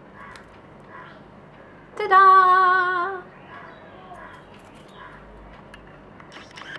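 A woman's voice sings out "Ta-da!" about two seconds in, on a loud held note with a waver that lasts about a second.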